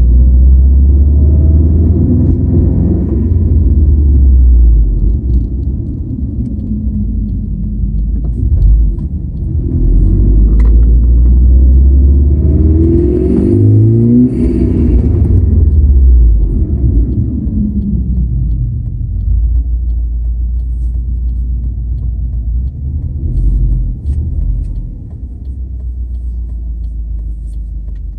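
2016 Subaru WRX STI under way, its turbocharged flat-four rumbling as it pulls and then eases off. The engine note climbs in pitch about halfway through, then drops back. The car makes a metallic whirring under acceleration that is more noticeable when the gas is released; its cause is unknown.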